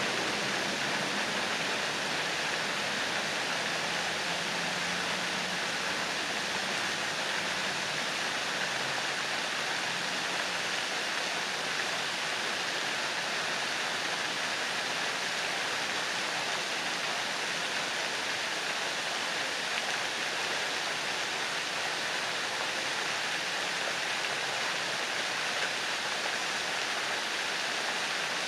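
Pond fountain jets spraying and splashing back into the water: a steady, unbroken rush of falling water.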